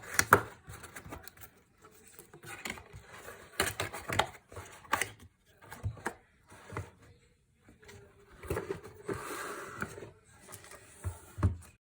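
Unboxing a mechanical keyboard: irregular knocks, taps and handling of the packaging, with a longer rustle about nine seconds in.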